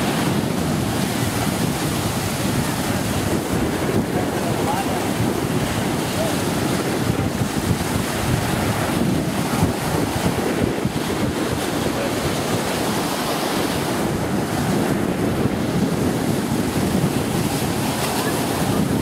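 Ocean surf washing in, with wind blowing on the microphone: a steady, unbroken rushing noise.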